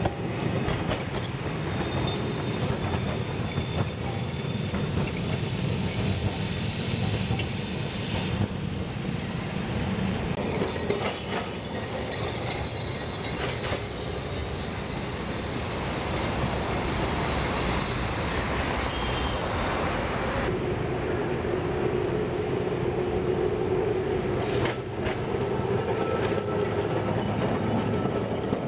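Electric trams running on street tracks, their steel wheels clattering over the rails. The sound shifts abruptly a few times, and a steadier hum joins in the later part.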